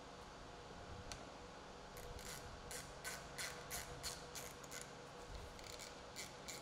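Faint, evenly spaced clicking, about three clicks a second, from a hand driver turning a screw into a plastic side trim panel. The clicks start about two seconds in, pause, and pick up again near the end.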